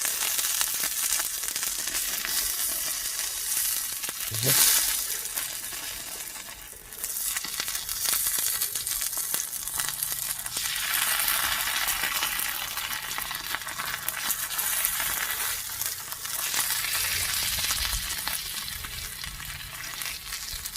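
Food sizzling steadily in a hot pan over a wood fire, with a brief louder sound about four and a half seconds in.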